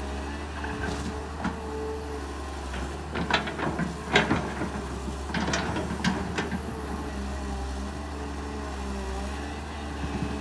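Kobelco SK200 excavator's diesel engine running steadily at work. Two clusters of sharp cracks and knocks come through it, about three seconds in and again about five and a half seconds in.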